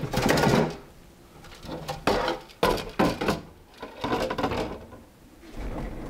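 Wheeled dust collector being moved about inside a storage cabinet: several short bumps and scrapes, the longest at the start.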